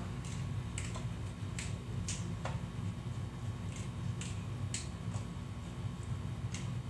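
Scattered faint clicks and taps from handling things in a kitchen, about a dozen at uneven intervals, over a steady low hum.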